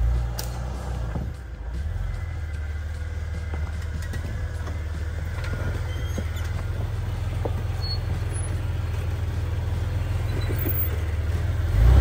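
Off-road 4x4's engine running steadily at low revs as the vehicle crawls over a large rock: a continuous low rumble with a few faint clicks.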